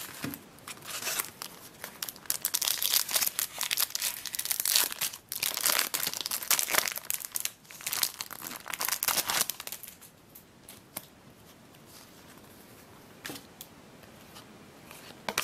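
Foil wrapper of a Star Wars Force Attax trading-card booster pack being torn open and crinkled for about ten seconds, then going much quieter with a few faint taps as the cards inside are handled.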